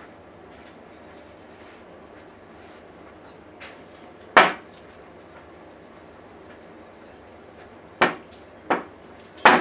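Sharp knocks of a hand on a wooden ash hammer handle over a steady background hiss: one loud knock about four seconds in, then three more close together near the end.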